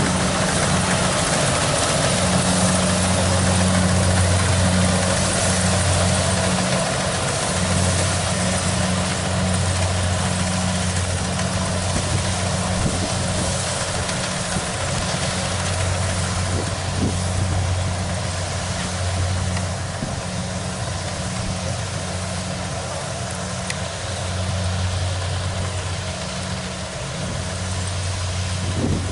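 Kubota DC70 Plus combine harvester's diesel engine running steadily, a constant low hum under a dense mechanical rush.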